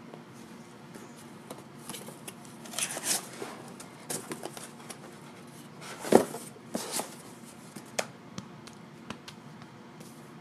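Rustling and crinkling as packaging is handled inside a cardboard box, in short scattered bursts, with a louder thump about six seconds in.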